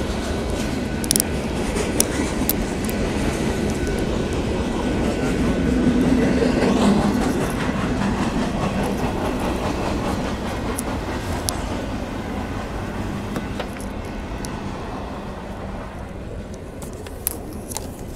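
Union Pacific freight train rolling past, its wheels clattering along the rails with scattered sharp clicks. It is loudest about six seconds in, then slowly fades.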